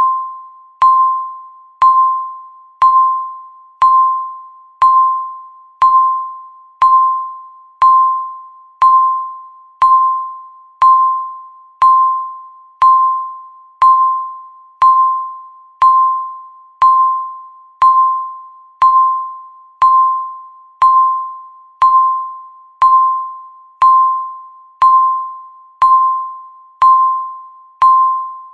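Countdown timer beeping once a second: a single clear tone, each beep starting sharply and fading away before the next.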